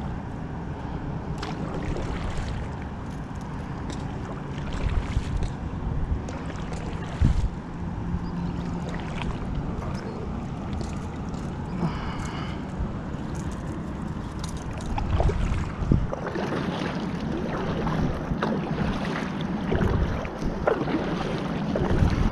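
Kayak paddle strokes splashing and dripping in the water, at an uneven rhythm, with wind rumbling on the microphone.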